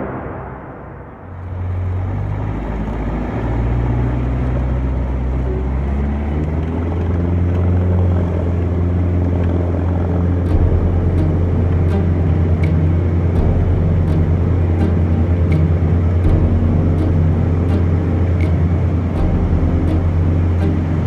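A 1952 Cessna 170B's 180-horsepower piston engine and propeller at high power during a takeoff run, heard from the cockpit as a loud, low, steady drone. The pitch shifts a little in the first few seconds, then holds steady.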